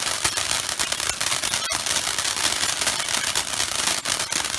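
Firework crackling: a dense, steady stream of rapid pops and crackles.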